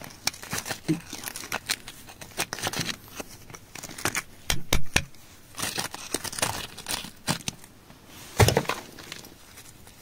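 Metal prying tool scraping and digging into crumbly dry clay, with bits breaking off, in irregular scratchy strokes. A couple of louder scrapes come around the middle, and the loudest comes toward the end.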